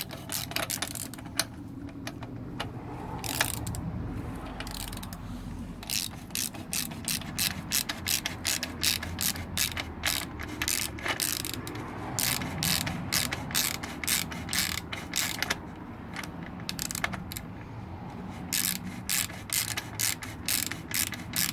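Socket ratchet wrench clicking in quick runs with short pauses, driving the bottom bracket tool as the new bottom bracket cup is threaded into the frame.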